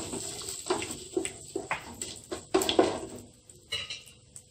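Spices and cashews sizzling in hot oil and ghee in a steel pot, stirred with a wooden spatula that scrapes against the pot, making a string of short crackles and scrapes for about three seconds before it dies down.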